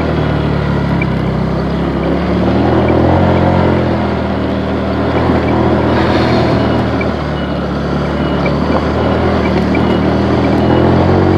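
Motorcycle engine running while riding, its pitch rising and falling several times.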